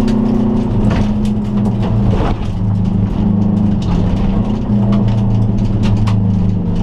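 2002 Subaru Impreza turbo wagon's turbocharged flat-four engine heard from inside the cabin, driven hard on a gravel rally stage, its note rising and dropping several times with throttle and gear changes. Sharp ticks of gravel striking the car's underside come throughout.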